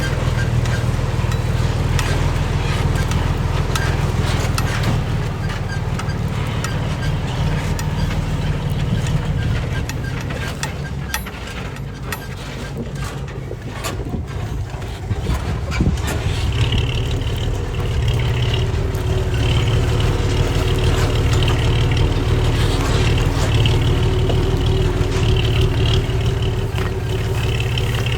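Heavy diesel earthmoving machinery running steadily, with scattered clanks and knocks. The engine drops back about eleven seconds in, picks up again around sixteen seconds, and a higher whine joins it from then on.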